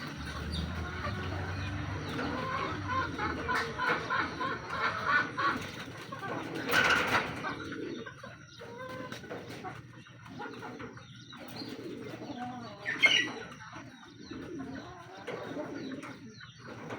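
Racing pigeons in a loft cooing, with a louder burst of noise about seven seconds in and a sharp sound near thirteen seconds.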